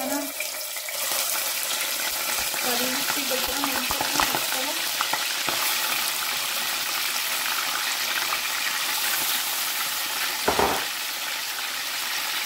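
Raw chicken pieces going into hot oil in a saucepan and frying with a steady sizzle. There is a single louder thump about ten seconds in.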